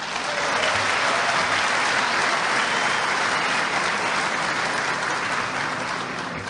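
Large audience applauding, swelling up in the first second and tapering off toward the end.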